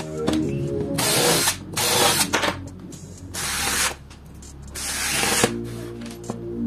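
A cordless drill-driver working screws into MDF in four short bursts, over background music.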